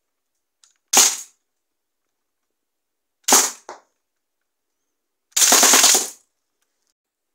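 Lego rubber-band machine gun firing: a single sharp clacking shot about a second in, another about two seconds later with a smaller click just after it, then a short rapid burst lasting under a second.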